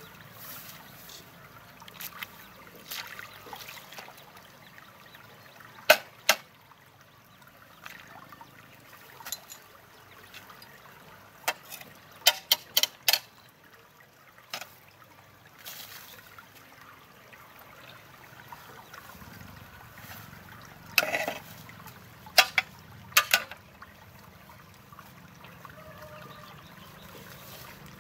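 Machete chopping into brush and dry stalks: sharp strikes, some singly and some in quick runs of three or four, over a shallow stream trickling.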